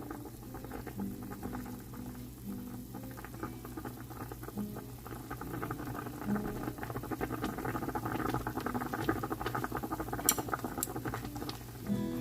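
Pot of bone broth with beef meatballs and bean sprouts at a rolling boil: a dense, steady crackle of bubbles popping, getting somewhat louder in the second half.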